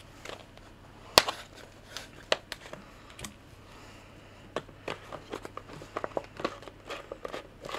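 Handling of a plastic water bottle and filter straw as the filter is screwed onto the bottle's neck: scattered sharp plastic clicks and crinkles, one loud click about a second in, and quicker, smaller clicks in the second half.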